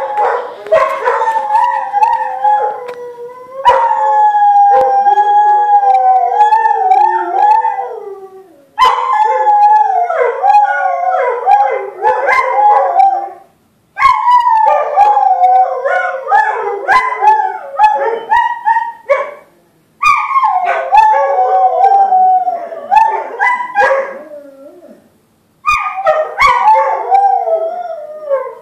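Two dogs howling together, long wavering howls that overlap, in about five bouts with short breaks between them, set off by a talking caller ID announcing a call.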